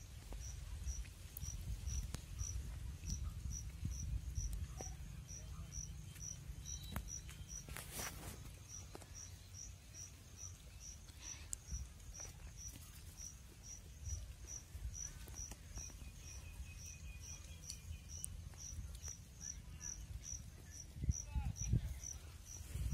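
Cricket chirping steadily, a short high chirp about twice a second, over a low rumble.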